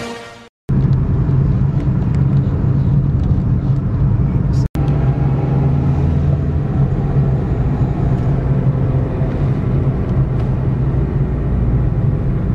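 Engine and road noise of a moving car heard from inside its cabin: a steady low drone.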